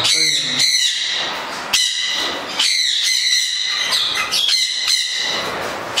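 Many caged parrots squawking and screeching, shrill harsh calls overlapping one another without pause.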